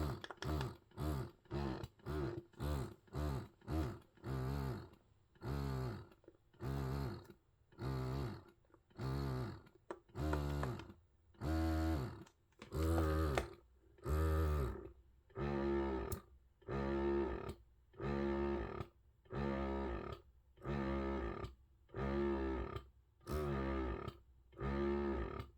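Medela Swing electric breast pump's motor running in repeated suction cycles, each pulse a short rising motor whine. The rhythm slows about five seconds in, from about two cycles a second to about one longer cycle a second, as the pump shifts from its quick stimulation rhythm to its slower expression rhythm.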